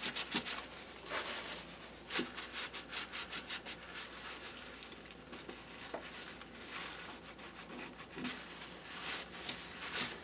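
Paper towel being rubbed with quick back-and-forth strokes in several short bursts, wiping old thermal paste and pad residue off laptop parts.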